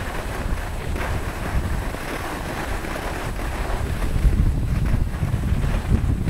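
Wind buffeting the microphone of a camera carried by a skier moving downhill, a steady low rumble, with skis hissing over packed snow.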